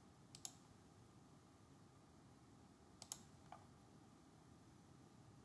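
Near silence with a few faint computer mouse clicks: a quick pair about half a second in, another pair about three seconds in, and a single click just after.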